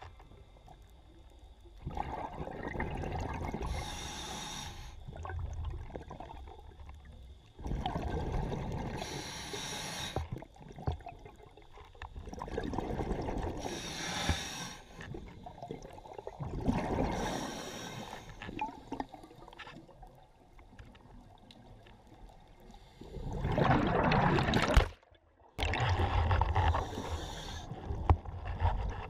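Scuba diver breathing underwater through a regulator: a cycle of hissing inhales and rumbling exhaled bubbles repeating every few seconds. Near the end the sound cuts out briefly and gives way to louder steady noise.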